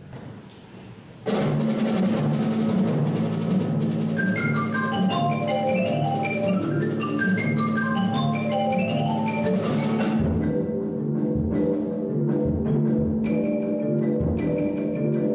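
Marimbas start up suddenly about a second in, playing fast repeated notes over a steady low bass figure, with quick rising and falling runs in the higher notes. The upper runs drop away around ten seconds in, leaving the lower repeated pattern.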